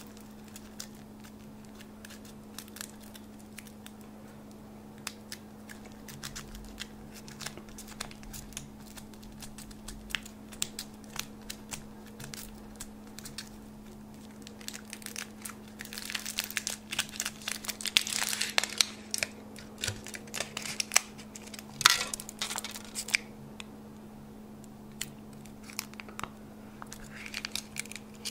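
Thin foil wrapper of a Kinder Surprise chocolate egg crinkling and tearing as it is peeled off by hand. The crackles come scattered at first and grow busier and louder in the middle.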